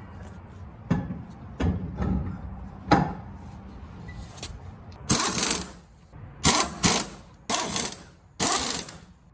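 A few knocks as a truck wheel is lifted onto the hub, then a stubby pneumatic impact wrench spinning lug nuts onto the wheel studs in five short bursts, each under a second, from about five seconds in.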